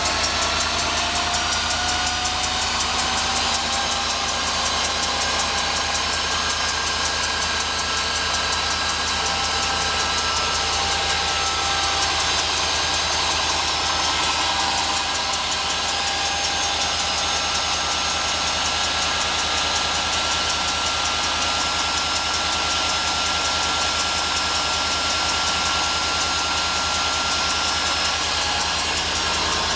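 2003 Cadillac DeVille's engine idling just after starting, with a steady high-pitched whirring whine of several tones over the engine's hum; the whine rises slightly in pitch during the first few seconds and then holds. Its cause is unknown to the owner.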